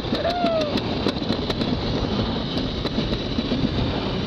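Summer toboggan sled running fast down a trough-style track: a steady rushing rumble, with a quick run of sharp clicks in the first second and a half and a few scattered clicks later.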